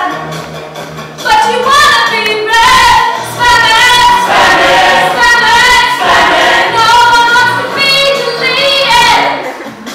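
A woman singing a song over backing music, holding long notes with glides between them.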